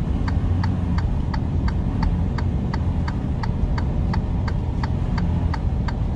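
Steady low truck engine and road rumble with a blinker ticking evenly, about three ticks a second.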